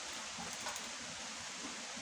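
Steady rain falling, an even hiss, with a few faint clicks from bamboo strips being worked by hand.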